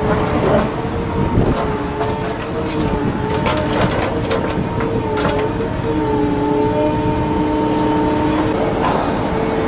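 Excavator's engine and hydraulics working under load with a steady, slightly wavering whine, as a scrap shear grips and cuts at a truck's chassis; several sharp metallic cracks and snaps come in a cluster a few seconds in.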